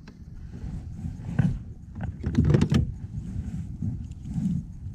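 Knocks, clicks and rattling of gear being handled on a plastic kayak as a hook is worked out of a fish in a rubber-mesh landing net. The loudest clatter comes about two and a half seconds in, over a low, uneven rumble.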